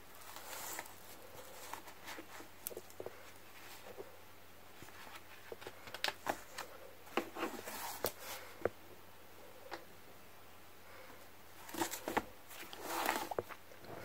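Handling noise of fabric-covered handmade journals: scattered light taps, clicks and rustles as they are picked up, turned over and set down on a cutting mat, with a louder bout of rustling near the end.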